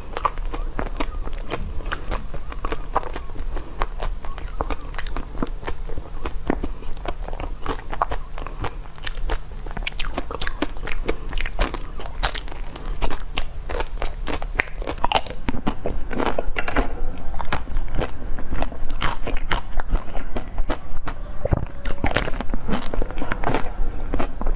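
Close, loud crunching bites and chewing of hard frozen treats on sticks, with many sharp cracks in quick succession.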